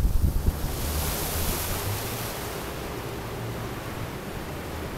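Steady rush of wind and water from a fishing boat under way, with a faint low hum of its motor underneath.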